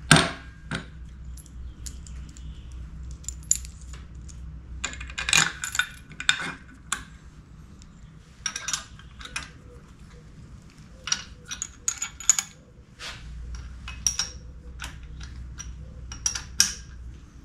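Steel parts clinking and knocking as a quick clamp and its bolts are fitted to a Di-Acro #2 bender, with a loud knock at the start and later runs of quick small clicks from a wrench tightening the clamp bolts.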